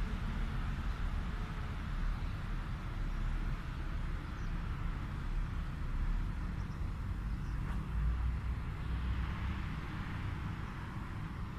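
Steady low rumble with a hiss over it, with no distinct events.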